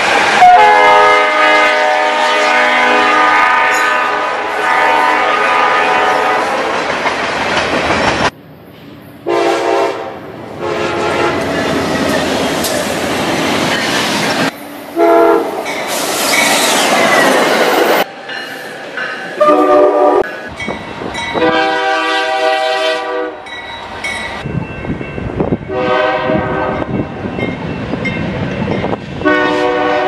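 Locomotive air horns sounding chords of several notes, in a run of separate recordings cut together: one long blast of about six seconds at the start, then a string of shorter blasts. Between the horns comes the rushing rumble of a passing train on the rails.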